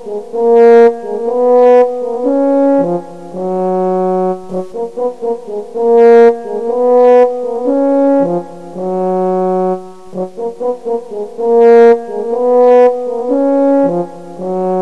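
Background music: a melody of quick short notes and longer held notes, with the same phrase played three times.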